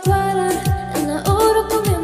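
Background music: a song with singing over a beat of deep bass-drum hits that fall in pitch, about one every 0.6 seconds.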